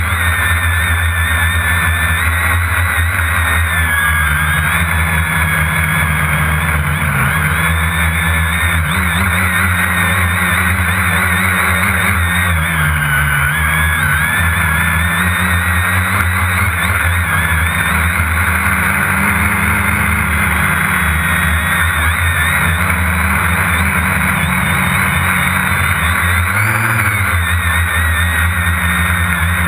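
Multirotor drone's electric motors and propellers running, heard from its onboard camera: a steady whine over a low hum, the pitch wavering with throttle. The pitch dips briefly about 13 seconds in and rises briefly near the end.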